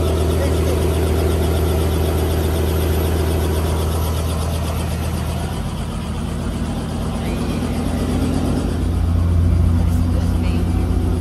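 Small helicopter's engine and rotor running at idle on the pad: a steady mechanical drone with a fast rhythmic beat. It dips slightly around the middle and swells near the end.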